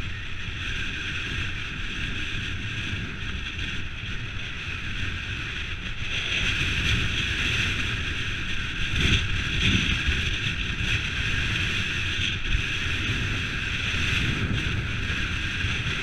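Mountain bike rolling fast over a dirt track, a steady rumble of tyres on the ground mixed with wind on the microphone, a little louder from about six seconds in.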